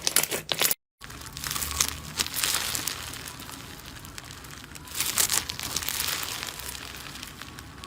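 Slime being squeezed and pressed, with crackling and crinkling sounds. The sound cuts out completely for a moment just under a second in, then resumes as steadier crackling with a few louder swells.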